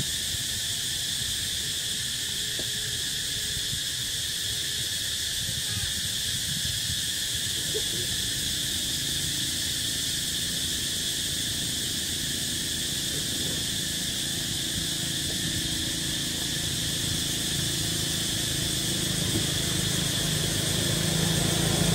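Steady, high-pitched chorus of forest insects. About halfway through, a low engine hum comes in and grows louder toward the end.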